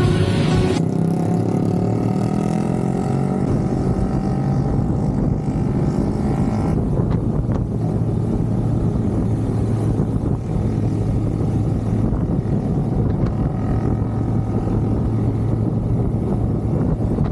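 Vehicle engine running on the move, its pitch rising over the first several seconds as it gathers speed, with steady wind noise. A bit of music cuts off within the first second.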